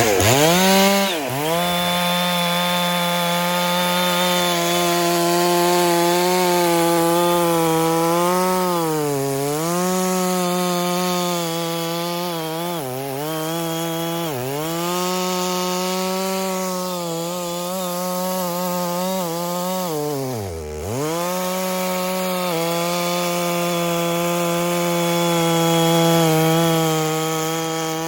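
Two-stroke chainsaw at full throttle, cutting through dead pecan wood. It revs up right at the start, and its pitch sags several times as the chain bogs in the cut. About 21 seconds in it drops almost to idle, then goes back to full throttle.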